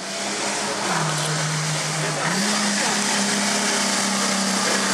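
Nissan Patrol Y60 4x4 engine working under load as it climbs a slope. The engine note drops about a second in, then rises again a little after two seconds and holds steady.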